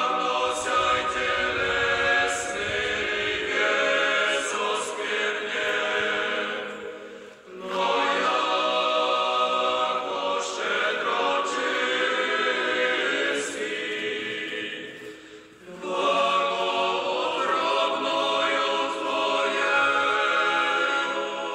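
A cappella choir singing in long phrases, with brief breaks about seven and a half and fifteen and a half seconds in.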